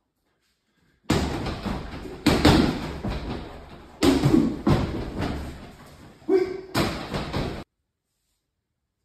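Punches landing on a free-standing mannequin-torso punching bag: about five heavy thuds, each trailing off over a second or so. The sound cuts off abruptly near the end.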